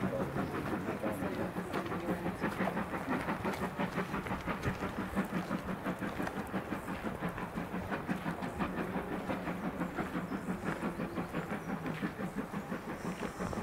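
Class 37/9 diesel-electric locomotive 37901, fitted with a Mirrlees MB275T engine, running as it moves slowly past. The engine gives a steady low hum with an even, rhythmic beat.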